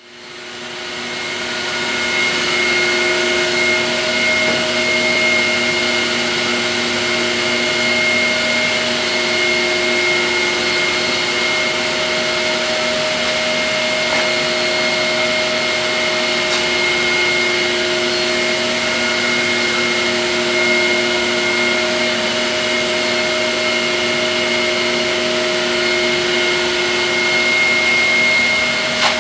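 An electric blower motor runs steadily, a constant rush of air with a whine made of several held tones. It fades in over the first two seconds.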